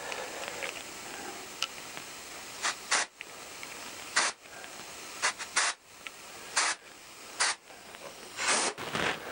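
Compressed-air blow gun giving a series of short, sharp blasts of hissing air through a carburettor's brass main jet body to clear it of blockages.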